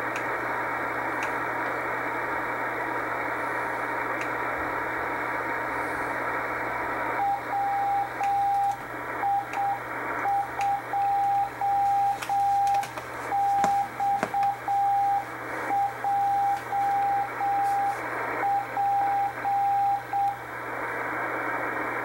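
Shortwave receiver in CW mode on 5058 kHz: band static and hiss, then about seven seconds in a slow Morse code tone, around 7 to 8 words per minute, keyed on and off as the experimental beacon WI2XJP sends its callsign. The tone stops near the end and static returns.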